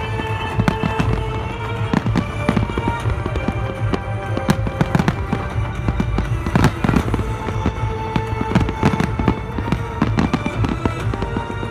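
Fireworks bursting in quick, irregular succession, many sharp bangs and cracks overlapping, with music playing along under them.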